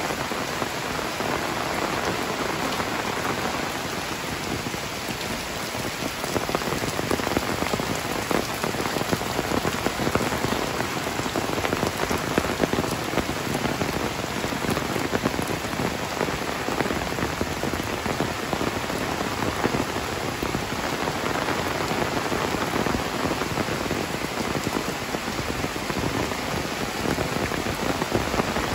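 Heavy rain pouring steadily on a concrete lane, roofs and foliage: a dense, even hiss of countless drop impacts, a little heavier from about six seconds in.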